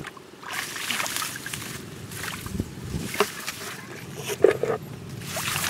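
Muddy water sloshing and splashing in uneven bursts as hands dig through it, with a few sharp clicks.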